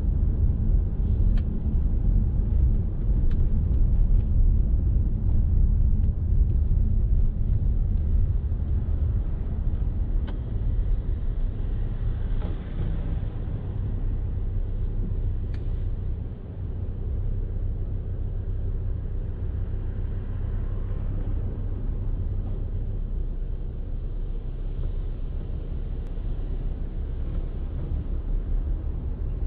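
Steady low road and engine noise of a car being driven, heard from inside the cabin. It eases off a little about halfway through, with a few faint ticks.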